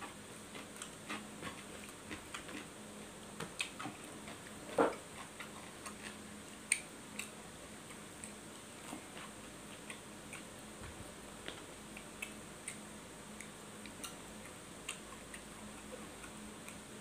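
Eating by hand: irregular small clicks and smacks of chewing and of fingers picking at biryani rice on a paper wrapper, one a little louder about five seconds in, over a faint steady hum.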